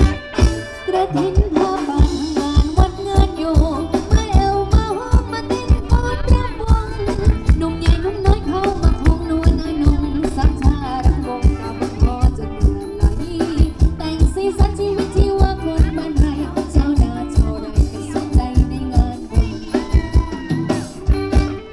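Live Thai ramwong dance band playing: a steady drum beat with bass, electric guitar and a singing voice.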